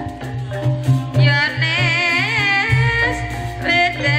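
Live Javanese gamelan music accompanying an ebeg horse dance: a singer's wavering, ornamented vocal line over steady drum beats and held gamelan tones.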